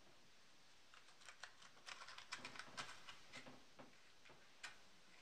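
Faint, irregular small clicks and rustles of something being handled, thickest in the middle, with one sharper click near the end.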